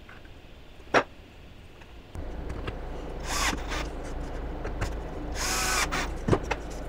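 Bosch 12 V cordless drill driver running twice in short bursts, each about half a second, driving screws into a small piece of wood. Sharp knocks of wood being handled come about a second in and near the end.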